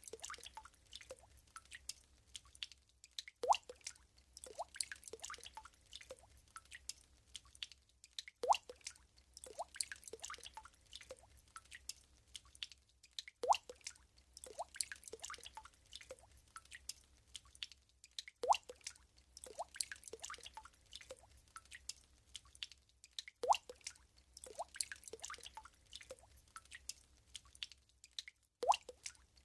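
Water drops dripping into water. A louder plop with a short upward pitch comes about every five seconds, with a scatter of smaller drips between, in a pattern that repeats like a loop.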